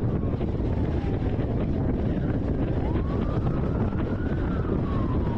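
Police siren on a slow wail: a falling sweep in the first two seconds, then a rise starting about three seconds in and a fall toward the end. Under it, a steady road and wind rumble from a moving car.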